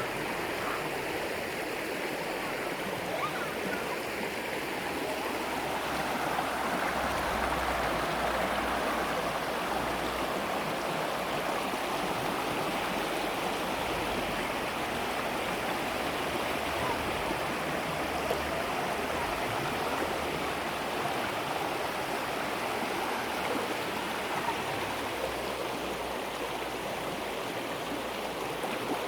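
River water flowing: a steady rush of water with no breaks.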